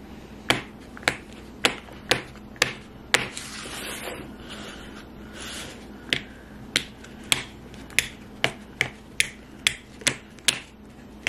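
Snap lids of plastic weekly pill organizers clicking one after another, about two clicks a second, with a pause of about three seconds a third of the way in.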